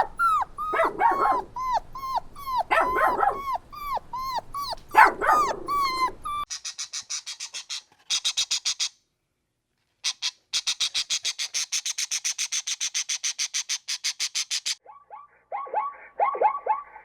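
Dogs yipping and whimpering in quick, repeated high calls. Midway they give way to a fast, even, high-pitched pulsing trill, which breaks off briefly, and the yipping calls return near the end.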